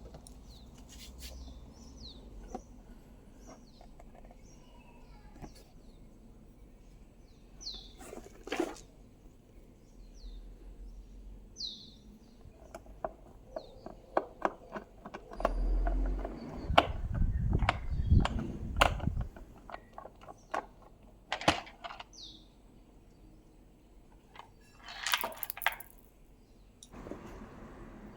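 Scattered clicks, knocks and rustles of things being handled, loudest in a busy stretch about halfway through. Small birds chirp faintly in the background, a short falling chirp every few seconds.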